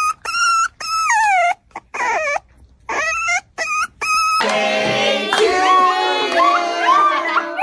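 A schnauzer puppy giving a string of short, high whines, several falling in pitch. From about four and a half seconds a schnauzer howls along with people singing.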